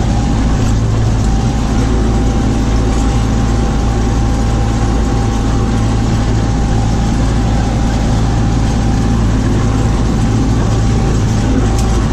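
Tractor engine running steadily under load while driving a stalk shredder through sunflower stalks: an even, loud drone with a thin steady high whine above it.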